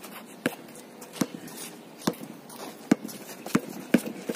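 Basketball dribbled on an outdoor asphalt court: a series of single bounces about once a second, quickening near the end as the player drives, with sneaker footsteps.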